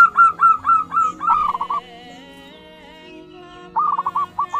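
Zebra doves (perkutut) calling: a rapid run of short, falling notes lasting nearly two seconds, then a shorter run near the end, over faint steady held tones.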